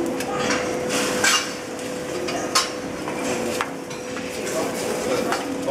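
Metal spatula clinking and scraping on a steel flat-top griddle while omelets and eggs are turned, with several sharp strikes spread through, over a steady hum.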